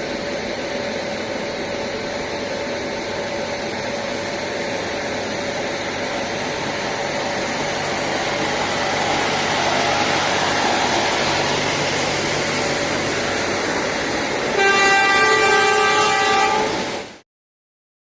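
A train running along the track with a steady rumble that swells a little midway, then its horn sounds for about two and a half seconds near the end, the loudest part; the sound cuts off abruptly.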